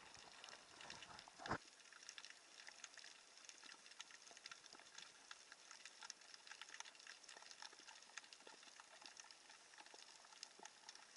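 Faint underwater crackle: a dense, steady patter of tiny clicks, with one louder low thump about a second and a half in.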